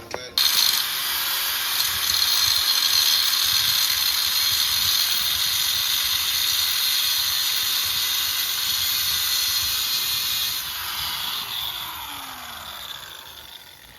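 Angle grinder cutting through a car's steel coil spring: a loud, steady, high-pitched grinding hiss that starts sharply, then eases off near the end as the disc spins down with a falling whine.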